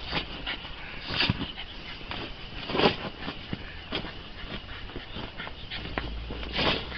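A small white dog whimpering in a few short bursts as it bites and shoves an inflatable beach ball, with the ball's vinyl scuffing and squeaking under its teeth and paws.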